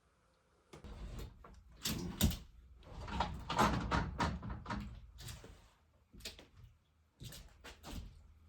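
A series of irregular knocks and clunks with stretches of scraping, busiest about two to five seconds in.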